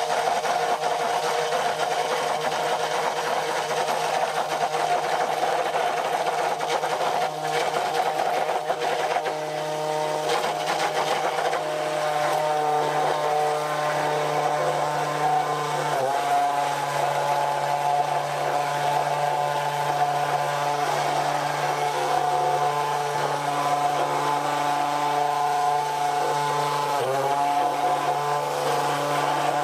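KitchenAid 2-speed immersion hand blender running steadily on speed 2, its blade held still at the bottom of the container as egg and oil emulsify into mayonnaise. The motor's pitch dips briefly twice, about halfway through and near the end.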